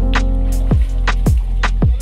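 Background music with a steady beat: deep bass drum hits about twice a second over sustained bass and chords, with crisp high ticks between them.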